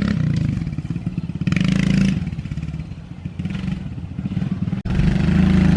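Pit bike engine running as the bike is ridden in first gear. It swells in level about a second and a half in, then eases off. Near the end it breaks off sharply and comes back louder and steady.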